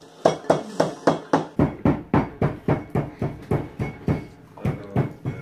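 Whole spices (peppercorns, cumin seeds, cloves, cinnamon) being pounded in a mortar and pestle: a steady run of sharp knocks, about four a second.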